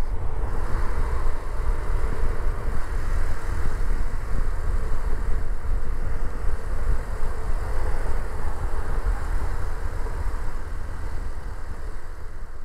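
Hero XPulse 200 single-cylinder motorcycle engine running steadily as the bike rides through city traffic, under a heavy low rumble. The sound starts to fade near the end.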